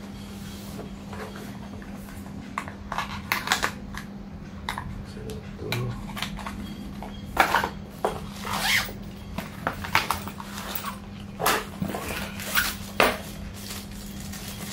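Handling noise: paper wrapping rustling and hard plastic drone parts clicking and knocking in the carrying case, in irregular bursts, loudest in the second half. A steady low hum runs underneath.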